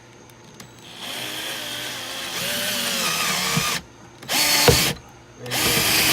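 Power drill driving a screw through a wood roof panel into sheet metal. It runs in three bursts with a wavering pitch, and there is a sharp knock about four and a half seconds in.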